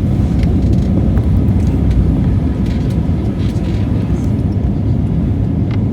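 Steady low rumble of an airliner's jet engines and airframe heard from inside the passenger cabin, with a few faint clicks.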